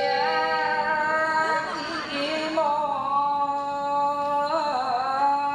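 A street food vendor's drawn-out melodic call: a few long held notes that waver and slide between pitches.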